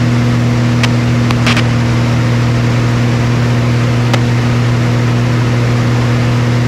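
Single-engine aerobatic plane's piston engine and propeller running steadily at cruise power, a loud even drone heard from inside the cockpit. A few brief clicks come about a second in and again around four seconds.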